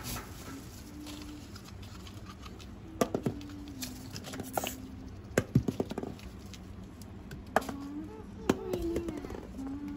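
Hamsters scurrying and rustling through loose wood shavings, with a scattering of sharp light taps.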